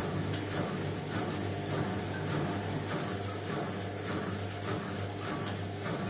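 Indesit front-loading washing machine washing towels: the drum turns with a steady motor hum while the wet towels and water swish and slosh about twice a second.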